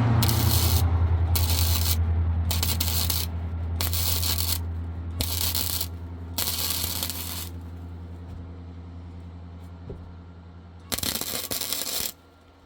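Small Lincoln MIG welder laying short stitch welds on a steel gate frame: a series of crackling arc bursts, each under a second long, about one a second for the first seven seconds, then one more near the end, over a steady low hum.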